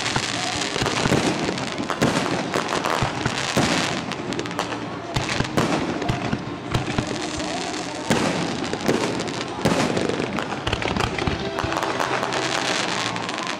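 Fireworks display: a dense, continuous run of overlapping pops, crackles and bangs from shells launching on rising tails and bursting into stars overhead.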